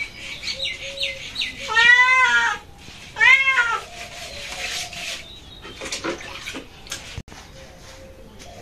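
A cat meowing twice: two drawn-out calls about a second and a half apart, the first the longer. A few short high chirps come just before them.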